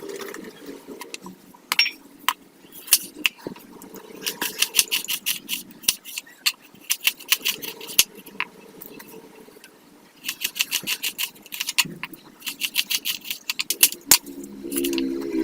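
A kitchen utensil clinking rapidly against a dish, in several runs of quick, even strokes with short pauses between them.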